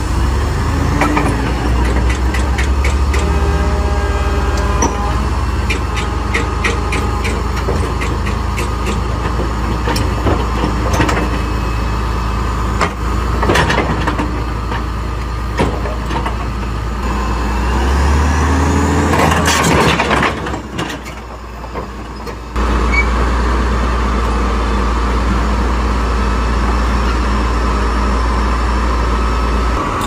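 Caterpillar D8R bulldozer's diesel engine running under load while it crawls onto a lowboy trailer, with repeated clanks from its steel tracks. The engine note swells about two-thirds of the way through, then drops away briefly before settling back to a steady run.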